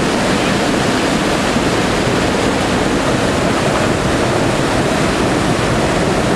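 Whitewater rapid rushing through a rocky river channel: a loud, steady noise of churning water with no breaks.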